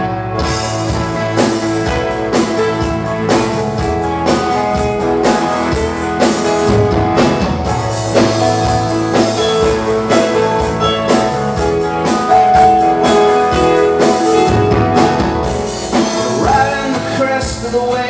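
Live rock band playing: electric guitar, bass guitar and drum kit on a steady beat.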